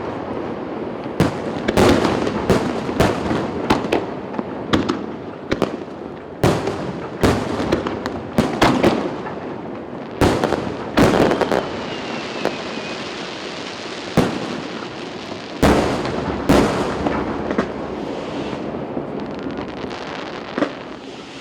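Aerial fireworks display: shells bursting in quick, irregular succession, sharp bangs one after another over a continuous crackle.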